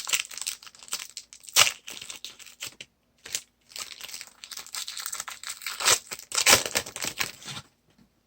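A trading-card pack wrapper being torn open and crinkled, in uneven spells of sharp crackling and rustling with a brief pause about three seconds in; it stops shortly before the end.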